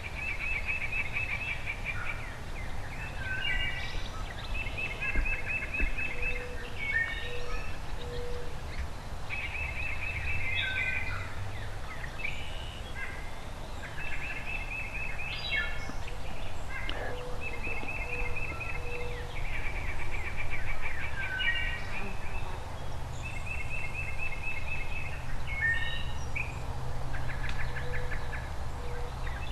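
Songbirds singing: a fast, even trill repeated every few seconds, mixed with other short chirps, over a low rumble.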